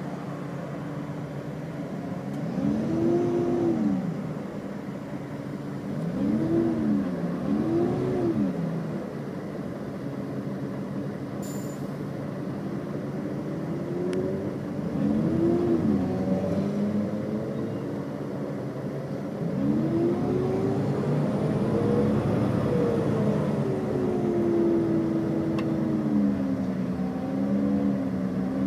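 Iveco Crossway LE bus's Cursor 9 six-cylinder diesel engine, heard from inside the bus. The revs rise and fall in several short swells, then climb for longer, hold, drop back and begin rising again near the end. A brief click comes a little before halfway.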